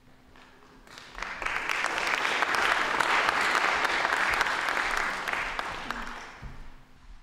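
Audience applauding: the clapping starts about a second in, holds for several seconds and dies away near the end.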